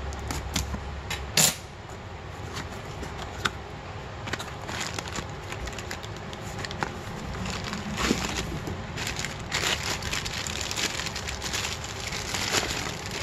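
A knife slitting the tape on a cardboard box, with sharp clicks and scrapes, then the box flaps opening and the plastic wrapping round an oil filter crinkling, loudest in the last few seconds.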